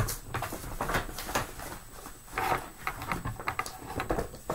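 Handling noise: a printed paper cross-stitch chart being folded and set down, irregular rustling with light taps and clicks.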